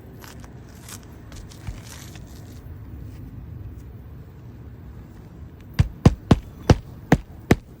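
Six sharp knocks in quick succession, a little over two a second, near the end, over a low steady rumble.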